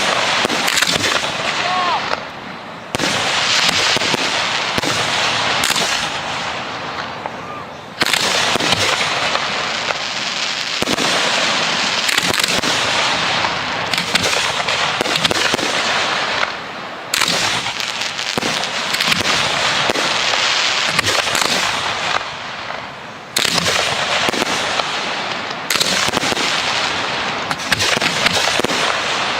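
Professional fireworks going off: dense crackling and popping from many small bursts. Several times the crackle breaks off and a fresh burst starts at once.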